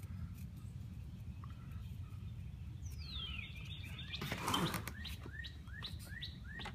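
Birds singing: a clear whistle slides down in pitch about three seconds in, a brief louder noise follows, then a quick run of short rising chirps, over a steady low rumble.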